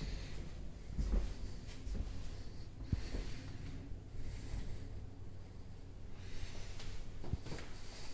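Low steady hum of room tone, with a few soft thumps of footsteps on a wooden floor and handling of the recording device, about a second in, three seconds in and near the end.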